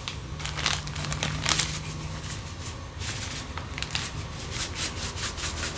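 Plastic seasoning sachet crinkling as it is squeezed and shaken out over a pan, a string of short irregular rustles, over a steady low hum.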